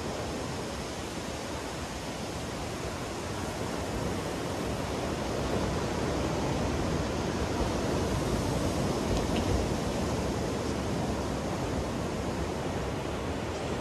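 Ocean surf breaking on a sandy beach: a steady rush of waves that swells in the middle and eases toward the end.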